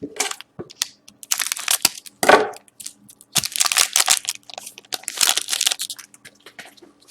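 Foil wrapper of a hockey trading-card pack crinkling and being torn open, in several short rustling bursts.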